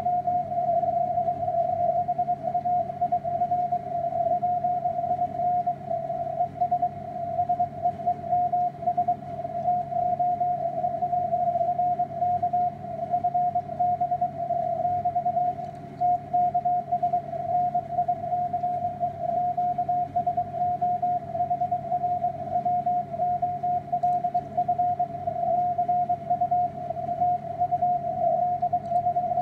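Morse code (CW) signal on the 160-metre amateur band received through a software-defined radio: a keyed mid-pitched beep tone, rapidly switching on and off, over faint band noise.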